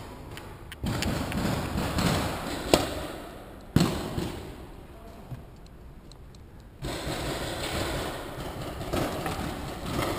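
Rustling and scuffing of a player's gear moving right at the microphone, with a couple of sharp knocks about a third of the way in.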